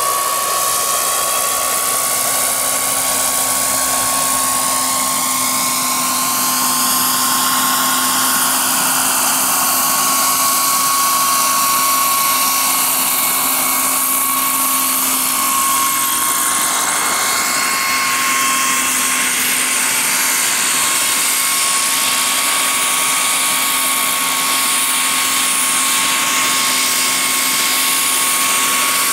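Turbine engine and rotor of a large radio-controlled scale Sikorsky S-64F Skycrane helicopter running: a steady high whine over a rushing hiss. Its tone sweeps during the first few seconds as the helicopter flies in, then holds steady as it hovers low.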